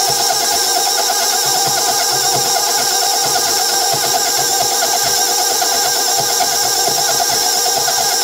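KitchenAid bowl-lift stand mixer running at a steady speed with a steady motor whine, its flex-edge beater creaming butter and sugar and scraping the stainless steel bowl.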